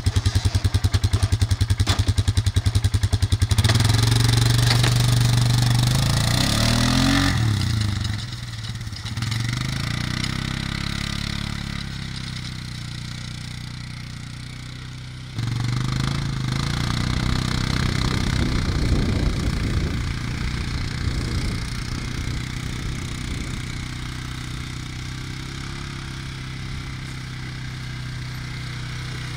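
Polaris ATV engine idling with a fast, even beat, then revving up about three seconds in as the quad pulls away dragging a Groundhog Max disc plow through the turf. After an abrupt cut the engine runs steadily under the load of the discs, slowly getting quieter as the ATV moves off across the field.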